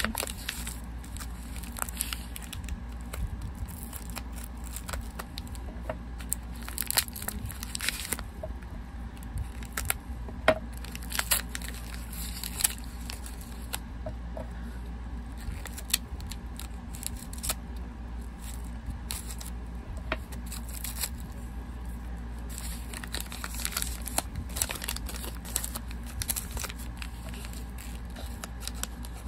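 Wrapping being torn open and crinkled by hand, in irregular rustles, tears and clicks with short pauses between.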